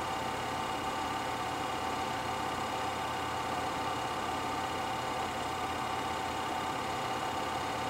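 Film projector running: a steady whir with a constant hum that does not change.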